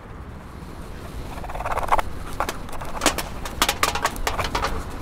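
Footsteps of hard-soled shoes on pavement, sharp irregular clacks starting about two seconds in and running on at a walking pace.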